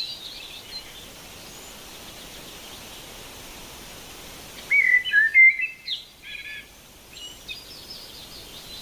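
A songbird singing: a loud, quick phrase of varied whistled notes about five seconds in, followed by shorter, softer chirping phrases, over a steady background hiss.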